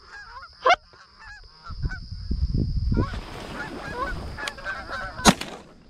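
Canada geese honking and clucking as a flock comes in over the decoys, with a low rustle from the blind about two seconds in, then a single loud shotgun blast a little after five seconds.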